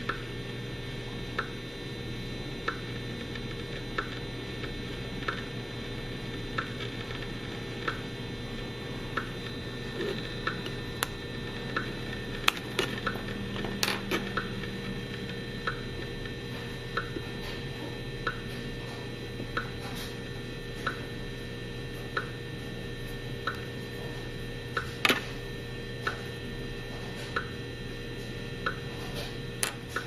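EMFields Acoustimeter RF meter clicking from its speaker about once every 1.3 seconds, each click a radio-frequency pulse picked up from the Fitbit activity tracker beside it, over a faint steady hum. A few louder, irregular clicks come through around the middle and near the end.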